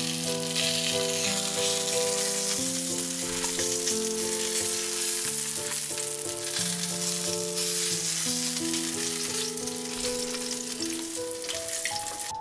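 Salmon fillets sizzling steadily as they fry in clarified butter in a pan, under soft background music.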